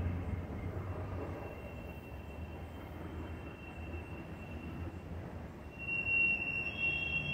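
A steady high-pitched squeal over a low rumble. About six seconds in it becomes louder and fuller, several high tones sounding together.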